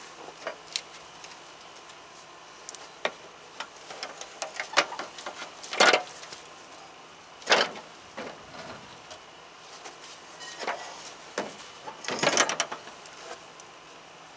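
A rusty metal lawn-mower deck being tilted and shifted by hand on the grass: scattered clicks and knocks, with a few louder scrapes about six, seven and a half and twelve seconds in.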